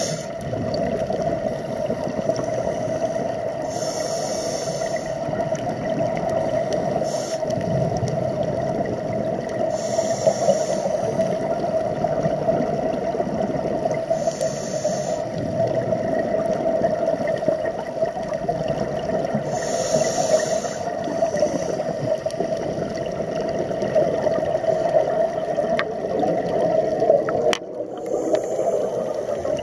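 Underwater sound picked up by a camera in its housing: a steady muffled rush of water, with a scuba diver's regulator breath hissing out in a short burst about every five seconds. One sharp knock near the end.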